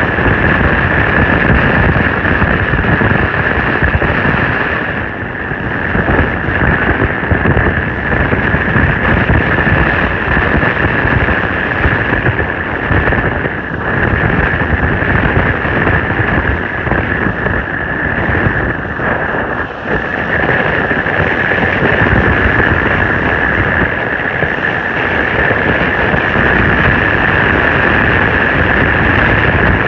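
Strong storm wind buffeting the microphone: a loud, steady rush that rises and dips with the gusts, with a steady high tone running through it.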